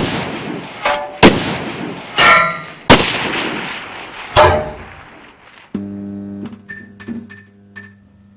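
Intro sound effect of four sharp gunshots about a second and a half apart, with short metallic ringing pings between them. About two-thirds of the way through they give way to a low sustained music tone with a few light clicks, which fades out.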